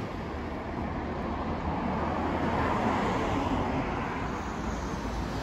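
Road traffic on a town street: a steady wash of car engine and tyre noise that swells a little midway, as a vehicle passes.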